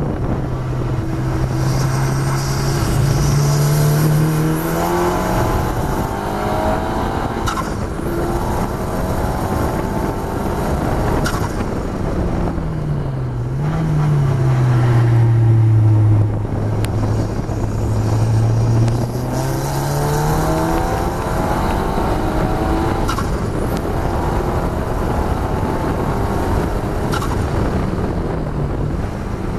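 KTM X-Bow's turbocharged Audi 2.0-litre four-cylinder engine, heard onboard, driven hard at track pace. Its pitch climbs and drops back at each gear change, with a sudden dip and quick rise about halfway through. Wind and road noise run underneath, with a few short clicks.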